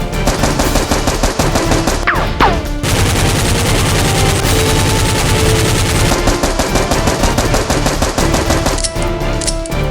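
Rapid automatic gunfire sound effects, dubbed over the action, with background music underneath. A falling whistle-like glide comes about two seconds in.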